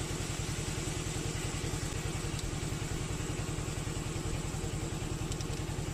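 A small engine running steadily at idle, a fast, even low throb, with a constant hiss over it.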